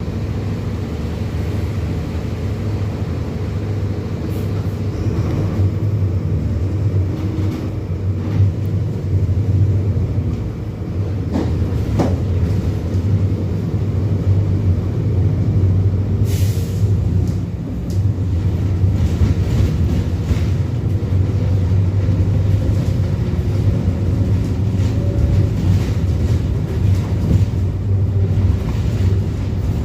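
Mercedes-Benz OF-1721 BlueTec 5 bus's four-cylinder diesel engine running steadily with a low drone. A sharp click comes about twelve seconds in and a brief hiss a few seconds later.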